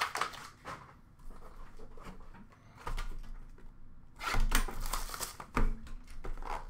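Trading cards and cardboard card boxes being handled: light clicks and rustling, then a cluster of sharper taps with a few dull knocks from about three seconds in as a box is picked up.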